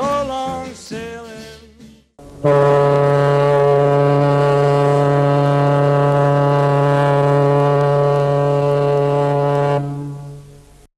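A ship's horn sounds one long, steady blast of about seven seconds, then fades away. Just before it, the last notes of a sung song end.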